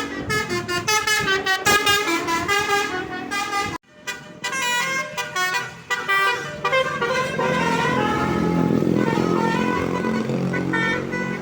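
Multi-tone telolet horn on a tour bus playing a quick tune of stepped notes. It breaks off suddenly about four seconds in, then another run of horn notes follows.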